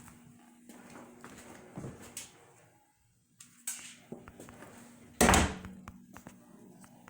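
Handling noise on a phone being fiddled with: scattered small clicks and knocks, with one loud thump about five seconds in, over a faint steady hum.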